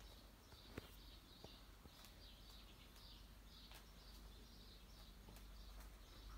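Near silence: faint room tone with faint high chirps, like small birds, repeating throughout, and a couple of light clicks in the first second or two.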